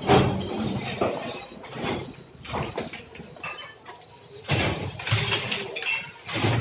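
House demolition: masonry being broken up and rubble crashing down, with irregular impacts and clinks of falling debris.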